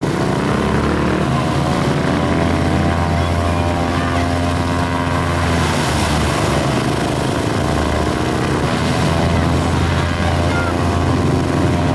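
Propeller aircraft engines running steadily at an airport, a continuous droning hum with a strong low pitch. The sound changes abruptly about six and nine seconds in.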